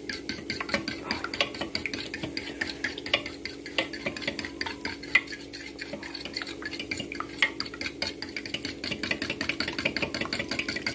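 Metal fork beating raw eggs in a glass bowl, with rapid, irregular clicks of the fork against the glass as the eggs are whisked.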